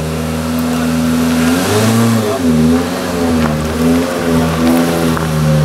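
Citroën DS3 WRC rally car's 1.6-litre turbocharged four-cylinder engine idling at a steady pitch, then blipped lightly a few times so the pitch wavers up and down from about a second and a half in, settling back to a steady idle near the end.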